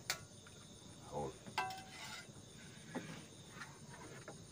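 A steady chorus of forest crickets and insects sets up high-pitched buzzing tones. Over it come a few short clicks and knocks and a brief pitched vocal sound about one and a half seconds in.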